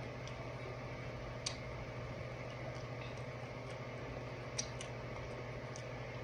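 Eating sounds from handling and biting sauce-covered chicken wings by hand: a few sharp clicks, one about a second and a half in and a close pair a few seconds later, over a steady low hum.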